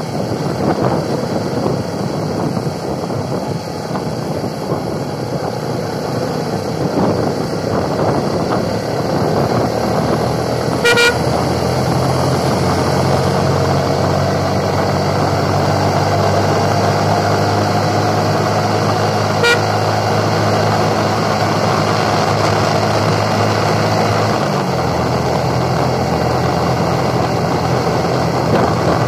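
Motorcycle under way: a steady engine hum under heavy wind and road noise. The engine note drops lower near the end. Two short sharp sounds stand out, one about a third of the way in and one about two thirds of the way in.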